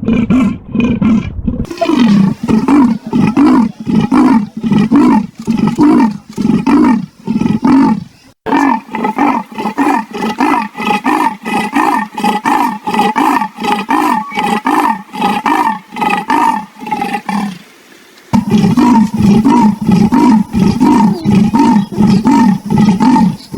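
Leopard giving its rasping sawing call: a long series of coarse grunts, about two a second, in several runs with short breaks about 2, 8 and 18 seconds in.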